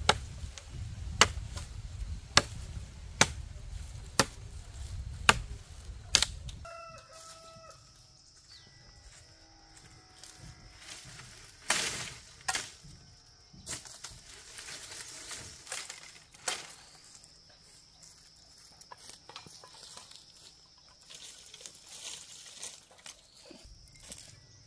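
A rooster crowing once, about seven seconds in, after a run of sharp knocks about once a second. A steady high-pitched tone and scattered clicks follow.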